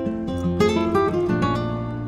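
Instrumental background music: plucked notes, one after another, over held bass notes.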